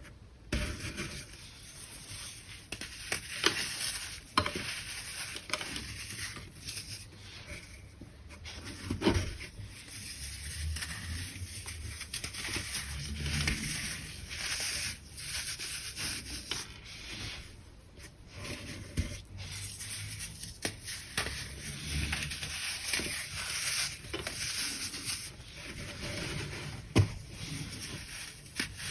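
Crunchy compressed baking soda being crushed, a dense run of crumbly crackles and gritty rubbing with sharper cracks now and then.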